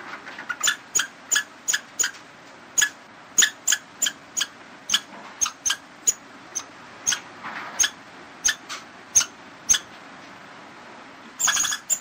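A squirrel calling in a series of short, sharp chirps, irregularly about two to three a second, over a steady background hiss. The calls pause for about a second, then come in a quick rapid burst near the end.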